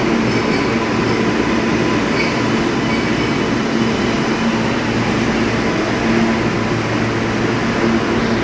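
New York City Subway L train pulling out of a station, running with a steady loud rumble and a low, even hum.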